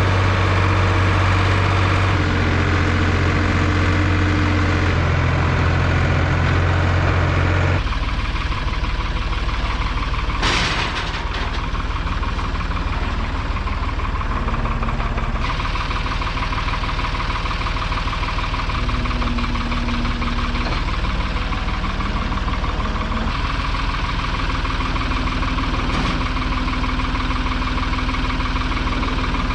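Engine running steadily, heard across several short clips cut together, each with a slightly different engine note; a single short sharp sound stands out about ten seconds in.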